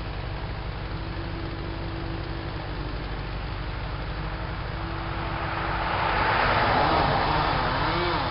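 A chainsaw running at high revs up in the tree, its pitch wavering up and down in the second half as it cuts, over the steady low running of a heavy engine. A broad rushing swell builds about five seconds in and eases off near the end.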